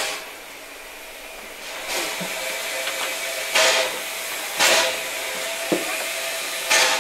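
1922 Hanomag steam locomotive standing in steam, hissing steadily. Several short, louder bursts of escaping steam break in at uneven intervals.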